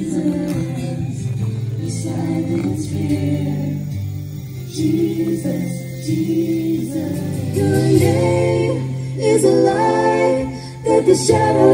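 Live worship band playing a gospel-style song: several voices singing held notes together over guitars and a steady low bass note.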